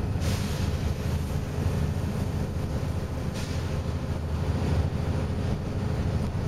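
Volvo B7RLE single-deck bus running, heard from a passenger seat inside: a steady low engine drone with a couple of brief hisses.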